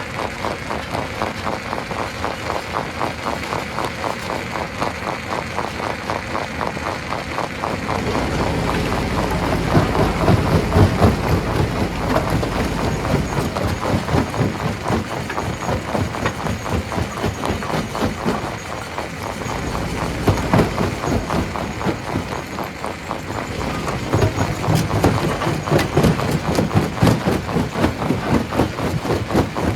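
Stone crusher running, with a fast, even mechanical clatter and a deep rumble that grows heavier about eight seconds in as rock is fed through.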